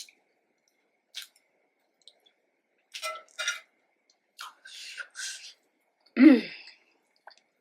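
Close-miked eating: a person's scattered short chewing and mouth noises, then, about six seconds in, a brief louder voiced sound from the throat.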